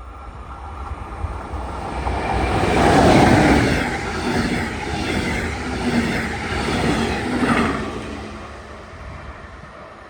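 A train passing by. It swells to its loudest about three seconds in, stays loud for several seconds, then fades away after about eight seconds.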